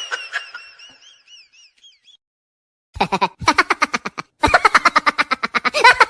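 Cartoon comedy sound effects: a warbling, wobbling boing fades out over the first two seconds. After a brief silence come two runs of a rapid pitched stutter, about ten pulses a second.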